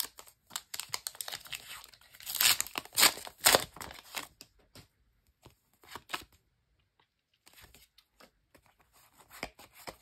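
The plastic wrapper of a trading-card packet is torn and crinkled, with crackling loudest about two to four seconds in. Quieter rustles and clicks follow as the cards are handled and fanned.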